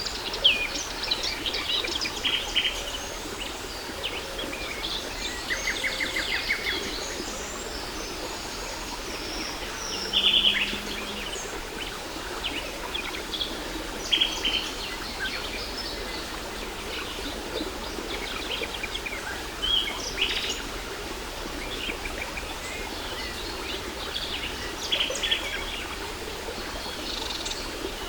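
Several birds chirping and singing, short calls and quick trills scattered throughout, over the steady rush of a waterfall.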